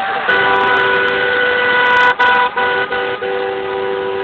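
Car horns held down in a long, steady honk, with a few short breaks about two seconds in and shortly after: celebratory honking in the street after a football match.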